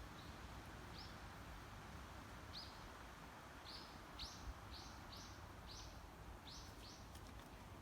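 A small bird giving short, high chirps, about nine in all, one at a time at first and then in a quicker run of roughly two a second, over faint steady hiss.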